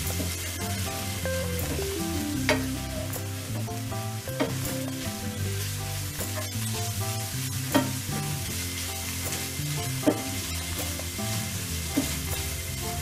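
Thin-sliced beef and green peppers sizzling in a nonstick frying pan while a wooden spoon stirs them, with a few sharp knocks. Background music plays underneath.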